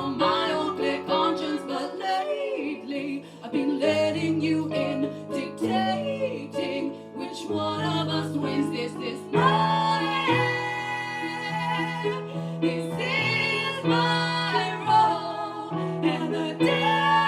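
Live music: a piano accompaniment with female voices singing over it.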